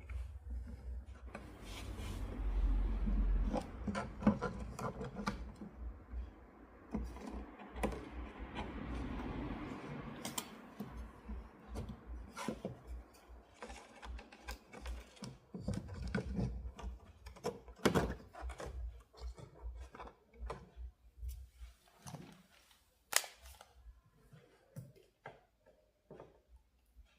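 Irregular clicks, taps and scraping from small parts and hand tools being handled during a portable Bluetooth speaker repair, with two stretches of rustling or scraping and sparser clicks near the end.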